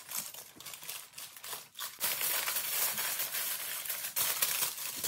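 Aluminum foil crinkling as it is mashed down by hand, getting denser and louder about two seconds in.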